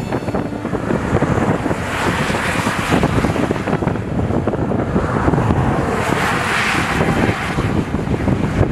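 Strong wind gusting across the microphone, a rough rushing noise that swells twice.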